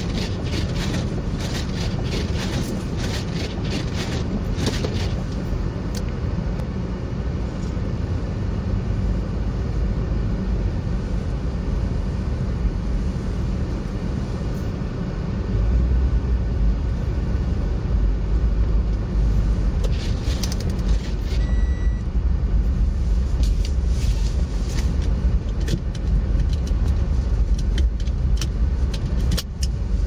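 Car cabin noise on a slow drive through snow: a steady low engine and tyre rumble that grows louder about halfway through as the car picks up speed. The windshield wipers scrape across the glass now and then, and there is one short beep a little past the middle.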